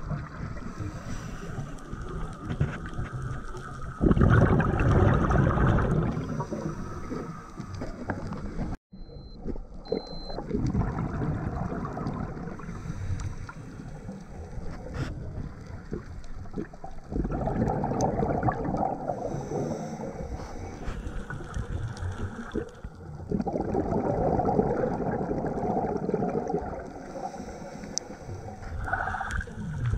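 Scuba diver's breathing heard underwater: loud bubbling bursts of exhaled air from the regulator, each lasting two to three seconds and recurring every several seconds, over a steady water hiss. The sound cuts out for an instant about nine seconds in.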